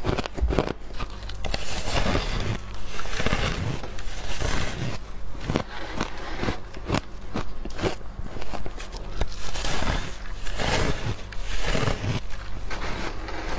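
Biting and chewing a slab of refrozen shaved ice: dense, repeated crisp crunches and crackling of icy grains.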